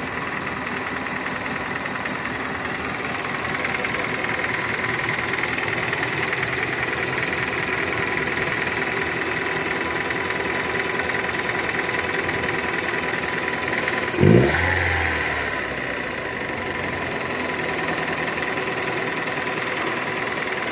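Chevrolet Corsa Classic 1.0 8v four-cylinder engine running steadily at idle, blipped once about 14 seconds in with a quick rise in revs before settling back. The engine was brought in for a noise from the motor and for puffing oil.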